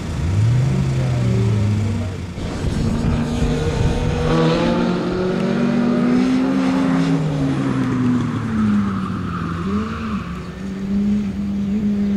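Open-wheel formula race car's engine revving up and down repeatedly as it accelerates and lifts between cones on an autocross course.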